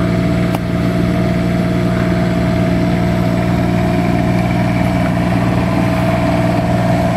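Diesel pusher motorhome with a Cat 350 diesel, idling with a steady low drone that keeps an even pitch.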